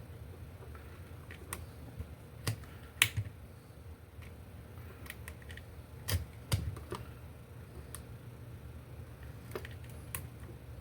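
Irregular sharp clicks and taps, about a dozen, from handling a hang light's small switch and multimeter test leads during a continuity test; the loudest come around three seconds in and around six seconds in. A faint steady low hum runs underneath.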